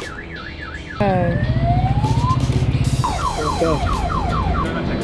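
Multi-tone electronic vehicle alarm siren cycling through its tones: a fast warbling yelp, then a rising whoop about a second in, then a quick run of falling chirps.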